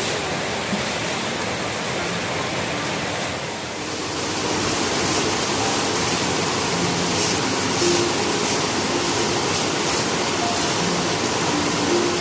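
Heavy rain falling steadily, a dense even hiss that eases briefly about three and a half seconds in and then picks up again.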